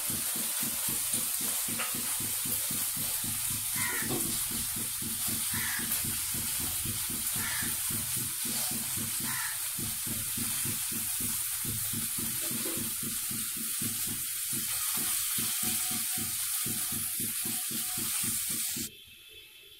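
Rasgullas shallow-frying in ghee in a nonstick frying pan, sizzling and crackling steadily as they brown and are turned over. The sizzle cuts off suddenly near the end.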